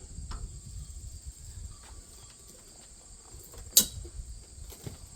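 A single sharp snap of hand snippers cutting metal, about four seconds in, with a few faint clicks of handling before it and a steady high whine in the background.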